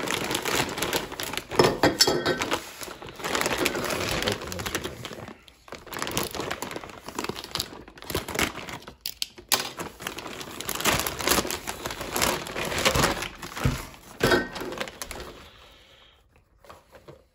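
Crinkling and rustling of packaging as hands unwrap a part from its white packing sheet inside a foam-lined cardboard box. The handling noise is irregular and dies down near the end.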